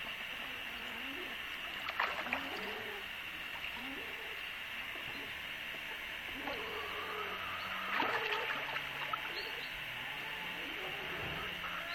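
Water splashing in a shallow paddling pool as a young goosander dives and swims after fish, with two brief splashes about two seconds and eight seconds in. Low rising-and-falling bird calls repeat about once a second behind it.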